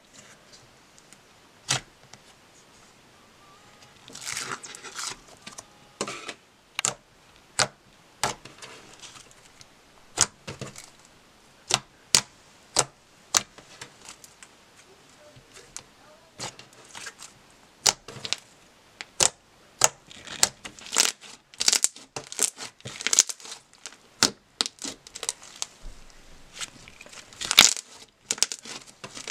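Hands poking, squeezing and stretching thick, airy slime: an irregular run of sharp pops and clicks as trapped air bursts, with a few short sticky tearing, crackling stretches.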